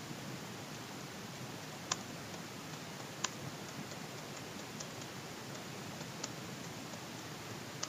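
Computer keyboard being typed on, heard faintly: irregular soft key clicks, two sharper ones about two and three seconds in, over a steady hiss.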